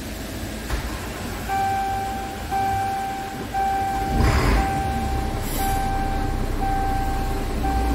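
Scania R truck's diesel engine idling, heard from inside the cab, while the dashboard warning buzzer sounds a steady repeating beep about once a second, starting about a second and a half in. A brief hiss comes about four seconds in.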